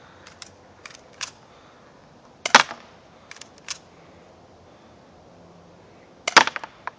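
Full-metal 1911 airsoft pistol firing: two sharp shots about four seconds apart, with fainter short clicks in between.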